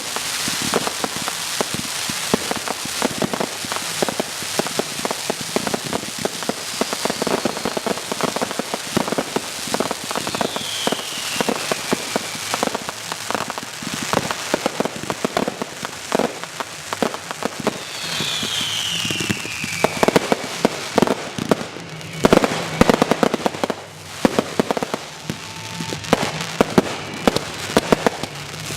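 Fireworks going off: dense crackling and popping, with a few whistles falling in pitch and louder bangs in the last third.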